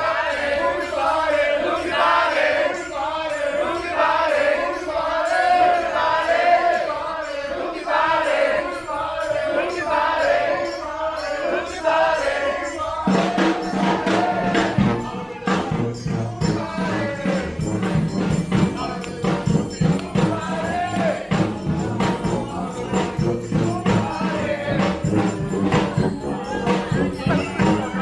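A group of voices singing together in unison. About halfway through, a street brass band with low brass and drums comes in and plays on with a steady beat.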